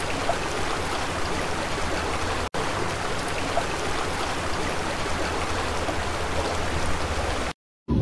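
Heavy rain pouring down steadily over flooded ground, with a momentary break about two and a half seconds in.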